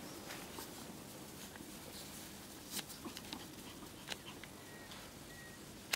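Small dogs, chihuahuas among them, scampering over thin snow: a faint patter of paws with scattered light clicks, the sharpest one just before the end.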